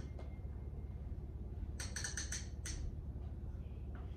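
Plastic knobs on a toy play kitchen's stove clicking as a toddler turns them: a quick run of about six clicks about two seconds in, over a steady low hum.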